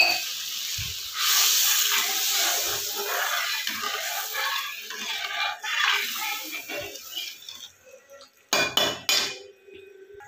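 Perforated metal skimmer stirring and scraping through masala gravy in an iron kadhai, with a sizzling hiss as just-added water meets the hot fried masala. Near the end, a few sharp clanks of the spoon against the pan.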